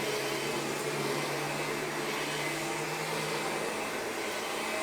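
Carpet vacuum with a power-driven head running steadily over carpet, an even motor-and-suction noise. A low hum within it drops away near the end.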